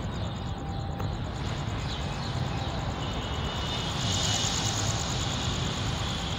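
Passenger coaches of the Mitali Express rolling past on the rails: a steady rumble of wheels and running gear, growing a little louder about four seconds in, with a faint high-pitched tone joining in about three seconds in.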